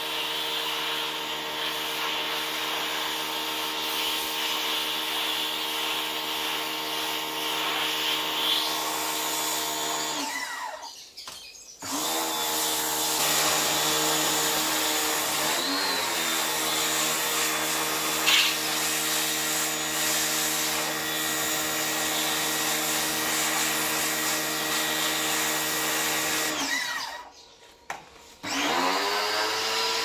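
Electric pressure washer running, its motor and pump humming steadily under the hiss of the water jet. The motor winds down and stops twice, about ten seconds in and again near the end, then starts up again each time.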